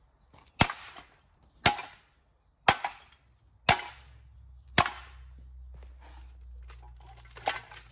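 Five hard blows about a second apart, striking the metal body of a cheap Hero ceiling fan as it is smashed up, each with a short ring. Smaller clattering knocks follow near the end.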